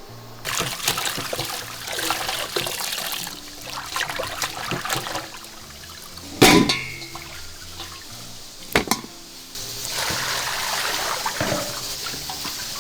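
Tap water running and splashing as raw chicken pieces are rinsed by hand, with small clatters and two sharp knocks, one about six and a half seconds in and one near nine seconds. The water settles into a steadier stream for the last few seconds. Background music plays underneath.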